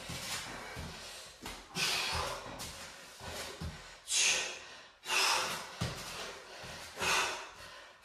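A man breathing hard under exertion during kettlebell lunges, with a sharp, hissing exhale every second or two.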